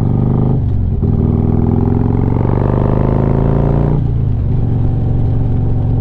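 Harley-Davidson Street Glide's V-twin engine under way: its pitch dips under a second in, climbs steadily for about three seconds as the bike accelerates, then drops off around four seconds in and settles to an even run.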